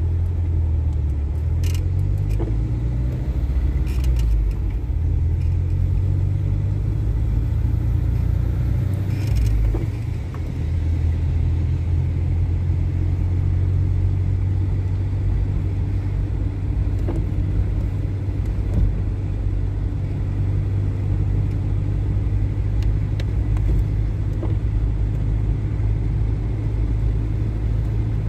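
Steady low rumble of a car driving on a wet road, engine and tyre noise heard from inside the cabin, with a few light clicks.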